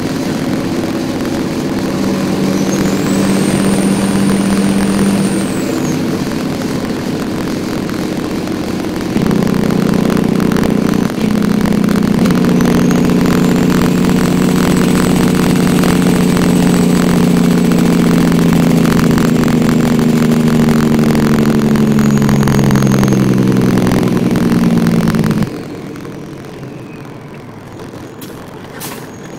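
Peterbilt recovery truck's diesel engine heard from inside the cab while driving, pulling harder from about nine seconds in, its note slowly falling in pitch, then suddenly much quieter near the end. A faint high whistle comes and goes above the engine.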